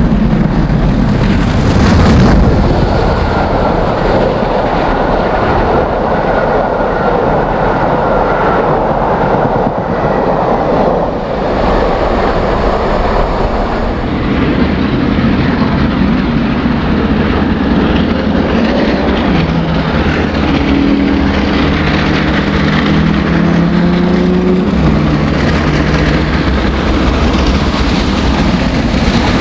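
Rebuilt Southern Railway Merchant Navy class three-cylinder steam locomotive working hard at the head of an eleven-coach train, its exhaust and running noise mixed with the rumble of the coaches going by.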